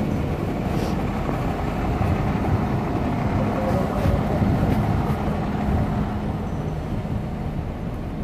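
Steady low hum of idling fire-truck diesel engines.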